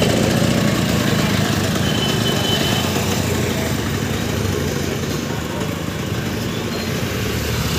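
Motorcycle and scooter engines running steadily in slow, congested street traffic, with a faint high beep about two seconds in.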